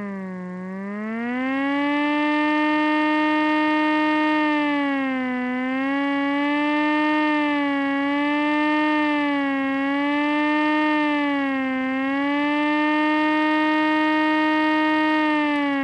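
Small 3D-printed air raid siren, its rotor spun by a Noctua A12x25 120 mm PC fan, sounding like a really tiny siren. The tone dips in pitch just after the start and climbs back, then holds steady, wavering down and up a few times.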